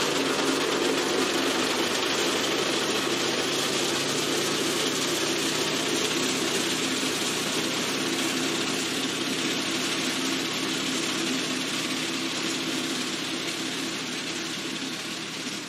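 Deutz 4006 tractor's air-cooled three-cylinder diesel running steadily while it drives a rear-mounted mower through dry grass. The sound slowly fades as the tractor moves away.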